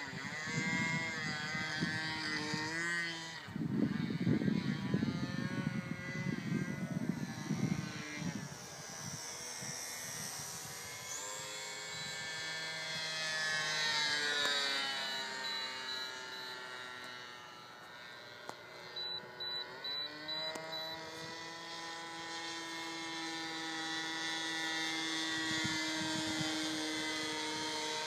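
Motor of a Seagull 40 radio-controlled model airplane buzzing in flight, its pitch rising and falling as it passes overhead and the throttle changes. A burst of deep rumbling noise comes in about four seconds in and lasts about four seconds.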